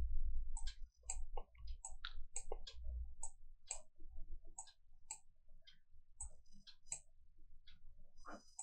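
Computer mouse clicking: a run of short, sharp clicks at an uneven pace, a few a second.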